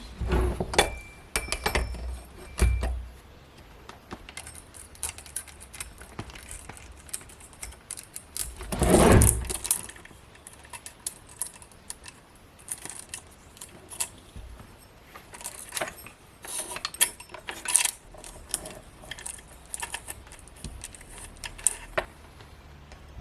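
Metal parts being handled, giving scattered light clinks and rattles. There is a cluster in the first few seconds and a louder rustling handling noise about nine seconds in.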